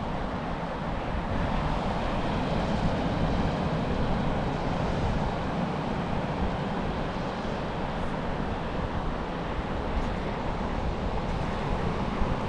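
Gulf surf washing steadily on the beach, with wind buffeting the microphone and a low rumble.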